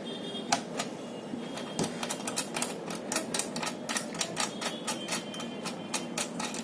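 Rapid, irregular clicking and light metallic tapping of hand tools on a platform scale's male connector as the old connector is worked loose and removed.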